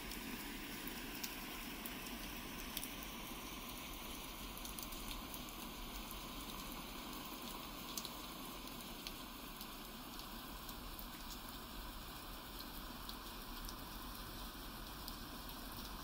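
A steady, fairly quiet hiss with a few faint scattered ticks, rain-like.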